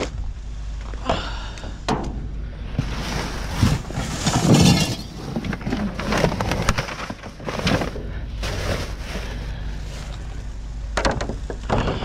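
Rummaging through trash in a dumpster: irregular rustling, scraping and clattering of bags, boxes and loose items, with a louder crash about four to five seconds in.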